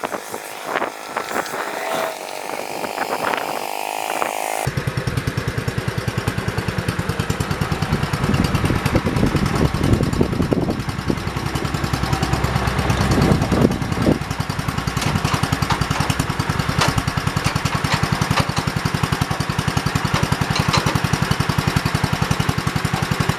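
The single-cylinder engine of a 1968 John Deere 110 garden tractor running while the tractor is driven, a fast, even beat that swells louder for a few seconds in the middle. For the first few seconds there are only scattered clicks and knocks before the engine sound comes in abruptly.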